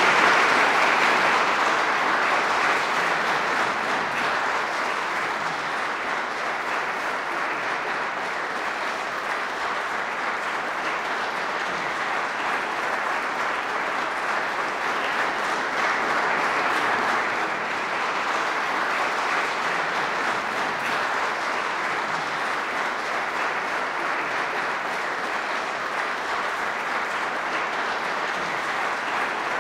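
Audience applauding, loudest at the start and then holding steady without a break.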